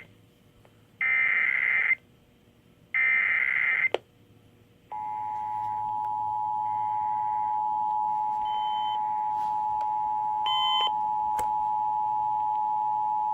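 Emergency Alert System test tones from an FM radio broadcast. First come the last of three buzzy, roughly one-second SAME digital header bursts, which encode the alert. After a short pause, from about five seconds in, the steady two-tone EAS attention signal holds to the end.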